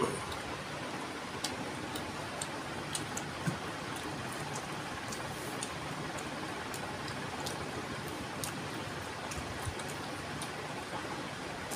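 Scattered small clicks and smacks of eating with the hands, chewing a curry-soaked chicken piece, over a steady background hiss.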